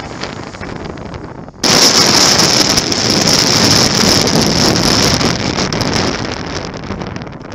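Motorcycle riding noise picked up by a bike-mounted camera. About a second and a half in, it jumps suddenly to a loud, rough rushing noise of engine and wind on the microphone, which holds for several seconds and fades near the end.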